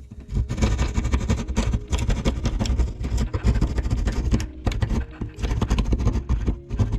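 Electrical cable being pushed and pulled through a drywall wall cavity: a dense run of irregular knocks and scrapes against the wall, with a heavy low rumble.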